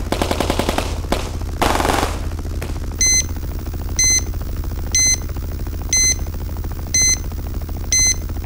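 Sound-effects bed: rapid machine-gun fire in the first second and a short burst of noise, then a patient heart monitor beeping about once a second from about three seconds in, over a steady low rumble.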